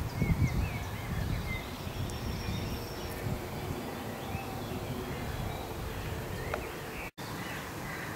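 Woodland ambience: small birds chirping now and then over a low, uneven rumble. The sound drops out briefly about seven seconds in.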